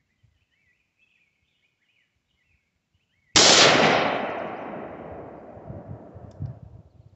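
A single shot from an AR-15 rifle with an 18-inch stainless .223 Wylde barrel, firing a 62-grain 5.56 round, a little over three seconds in. The loud report echoes and dies away over about three seconds.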